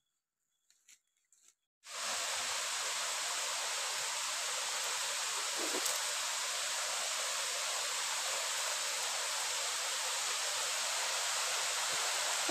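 Steady rushing of a waterfall, an even hiss of falling water that starts suddenly about two seconds in after near silence.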